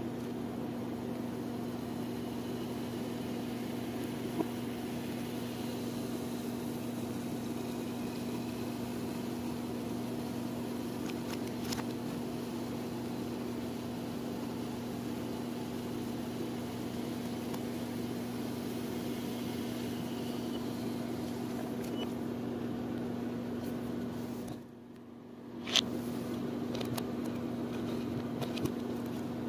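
A steady electrical hum with a low buzz, as of an appliance running. About 25 s in it drops out for about a second and comes back with a sharp click.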